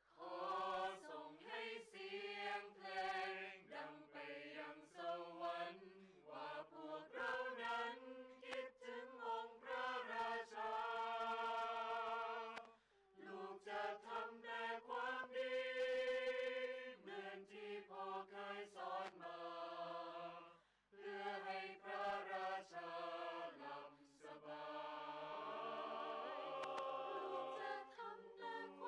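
Mixed choir of men's and women's voices singing a slow song in long sustained phrases, with brief breaths between phrases about 13 and 21 seconds in.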